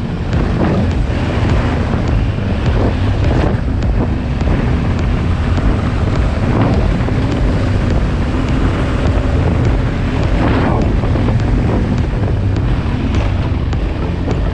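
Heavy wind buffeting on an action camera's microphone while riding a motorcycle, with the Yamaha Ténéré 700's parallel-twin engine running underneath.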